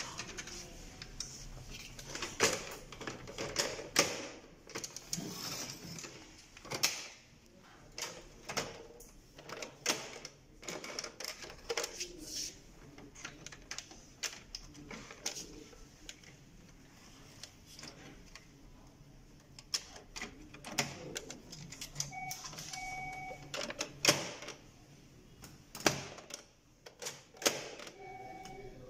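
Irregular clicks and knocks of plastic and metal parts as an HP LaserJet 1320 laser printer's covers and panels are handled and pressed into place, with a few louder knocks.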